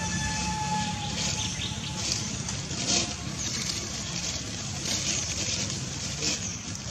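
Outdoor background noise: a steady low rumble with scattered faint hiss, and a thin steady tone through about the first second.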